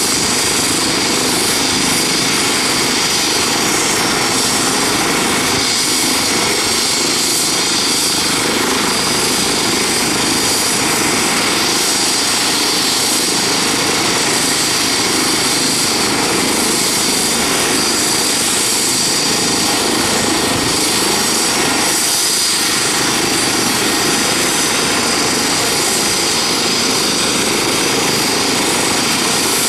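Eurocopter EC135 twin-turbine helicopter running on the ground with its rotors turning, before lifting off. A steady high turbine whine sits over the rotor noise, holding an even pitch and level.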